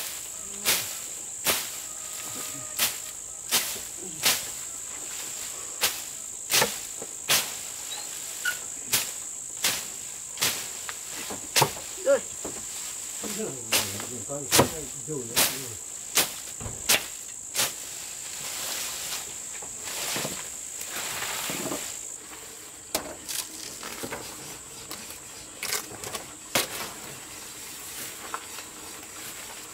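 Repeated sharp swishing chops of a machete slashing through grass and weeds, about one every three-quarters of a second, thinning out near the end, over a steady high-pitched chorus of insects.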